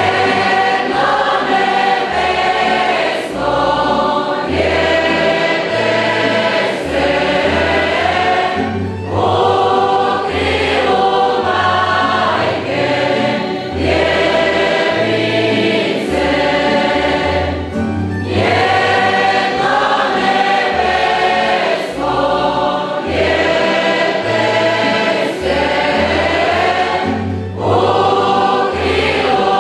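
Mixed choir of men's and women's voices singing a Croatian Christmas carol in a church, in phrases of about two seconds, over a low bass line that moves in steps.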